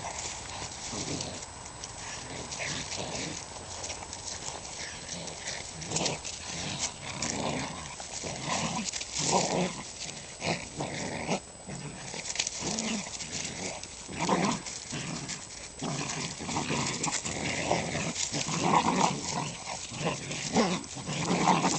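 Two eight-week-old red-nose pit bull puppies playing, making many short, irregular dog sounds.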